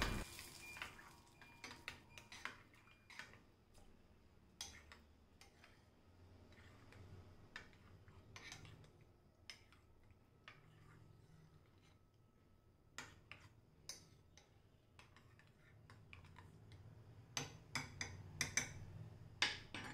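Metal spoon stirring curd rice in a glass bowl: faint, scattered clicks of the spoon against the glass, coming closer together and louder for a couple of seconds near the end.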